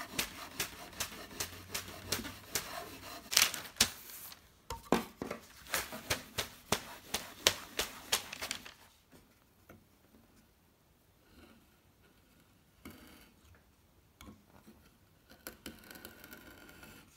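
Self-adhesive vinyl film being sprayed and smoothed down with a cloth: a run of short sharp crinkles and clicks, about two or three a second, for the first nine seconds or so. After that it goes much quieter, with a few faint scraping sounds as the film's edge is trimmed with a utility knife.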